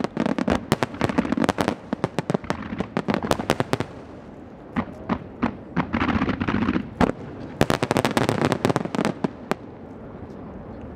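A barrage of fireworks shells bursting over the water: rapid sharp bangs over a low rumble, thinning out about four seconds in, then another dense flurry of bangs around eight seconds in before dying away near the end.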